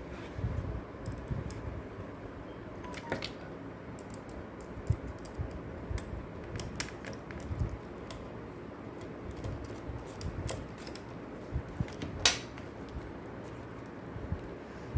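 Irregular small metal clicks and taps with soft low knocks: nuts, bolts and perforated metal strips of a Mechanix construction kit being handled and fitted, with one sharper click about twelve seconds in.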